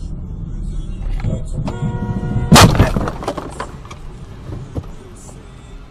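Road noise of a moving car, then a car horn sounding for under a second, cut off by a very loud crash of a car collision about two and a half seconds in. Scattered knocks and rattles follow as the noise fades.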